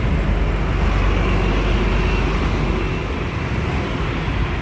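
Steady road traffic noise from cars and motorbikes, with a strong low rumble.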